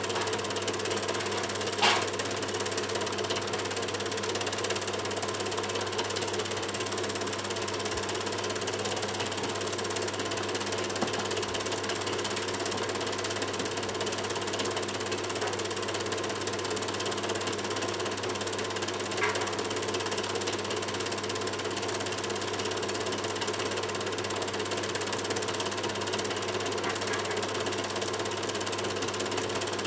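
Super 8 film projector running with a steady mechanical clatter from its film-advance mechanism, over a low hum. A single sharper click comes about two seconds in.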